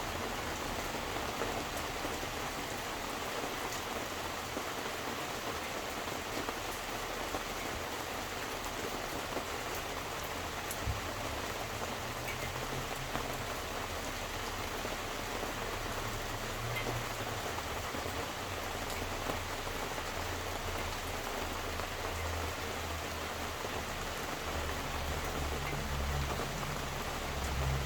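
Steady rain falling, an even patter of drops on surfaces, with a low rumble that comes and goes in the second half.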